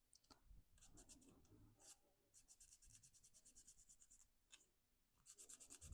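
Faint cardstock handling: quick runs of light scratchy rubbing as glued paper tabs of a pop-up card are pressed and smoothed down, in short patches about a second in, over the middle, and near the end.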